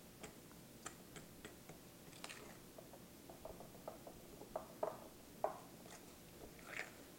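Gloved hands kneading butter cookie dough in a glass bowl to work in red food coloring: faint, scattered small clicks and taps, with a few louder ones a little past the middle.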